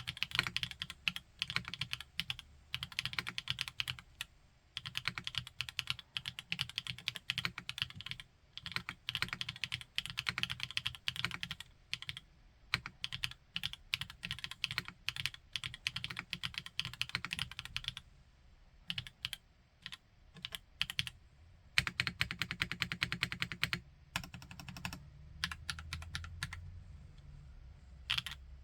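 Typing on a Qwertykeys NEO80 mechanical keyboard with a raw aluminium case and Gateron Modern Gray switches: runs of quick keystrokes broken by short pauses. The typing thins out about two-thirds of the way in, picks up again in a fast run, then slows to scattered strokes near the end.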